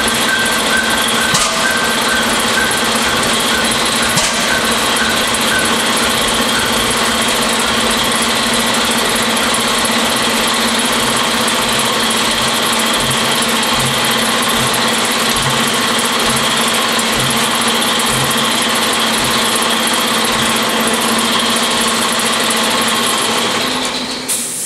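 Large single-cylinder stationary engine turning over slowly on compressed air, a steady loud hiss and rush with a faint slow beat beneath. It is not going fast enough to lift its governor. The noise drops off sharply near the end.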